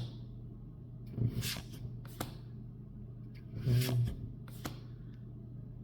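Pokémon trading cards being handled and flipped through, giving a few short sharp clicks and snaps, over a steady low hum, with a couple of brief murmured sounds from the person.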